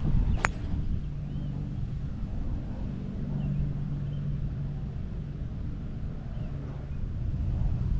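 A golf club striking a ball on a tee shot: a single sharp crack about half a second in. A low steady hum follows.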